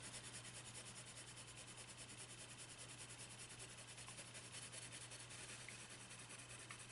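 Caran d'Ache Full Blender pencil rubbing quickly back and forth over layered colored pencil on paper: a faint, even scratching of short strokes, with a low steady hum underneath.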